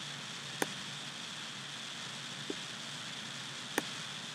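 Steady microphone hiss with a computer mouse clicking: two sharp clicks about three seconds apart and a softer tap between them.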